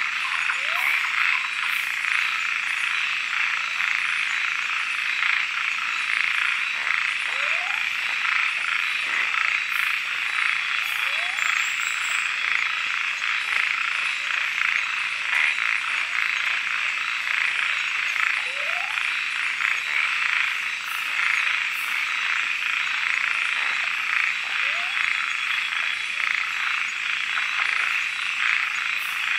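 Dense, steady night chorus of calling frogs in tropical rainforest. A few short upward-sliding calls stand out now and then, several seconds apart.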